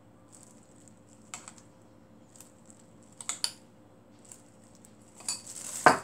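A spoon scraping and tapping thick seasoning sauce out of a small ceramic bowl onto spinach in a stainless steel bowl: a few separate clinks spaced a second or two apart, then a louder knock of crockery just before the end.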